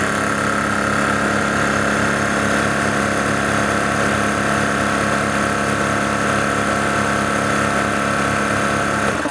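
Electric high-pressure scuba compressor (DAVV SCU100) running and filling a carbon-fibre air tank: a loud steady mechanical hum with a regular low pulsing from the pump. It shuts off abruptly at the very end.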